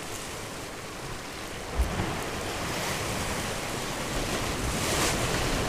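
Sea surf washing on the shore, swelling from about two seconds in and strongest near the end, with wind on the microphone and a short low thump about two seconds in.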